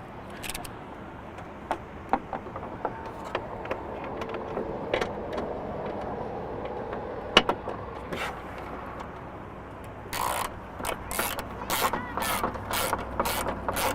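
Ratchet wrench clicking in quick even strokes, about three a second, from about ten seconds in, as it drives a socket to tighten a nut onto a stud through a hole in the intake's airbox. Before that there are scattered light clicks and knocks from handling parts.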